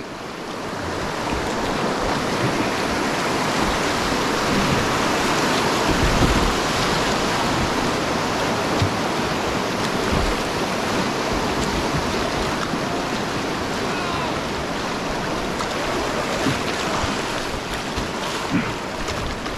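Whitewater rapids rushing and splashing around a kayak running the wave trains: a steady, full rush of water that builds over the first second or two, with a few low thuds mixed in.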